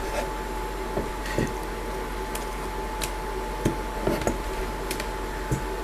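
Light handling noise: about ten soft clicks and taps scattered irregularly, from a USB cable and keyboard being handled, over a steady faint electrical hum.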